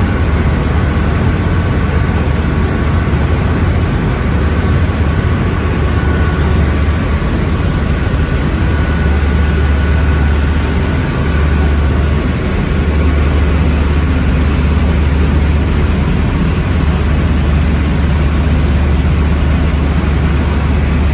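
Passenger boat under way, heard at the back of the boat: a loud, steady low engine drone under a constant rushing noise, with no break.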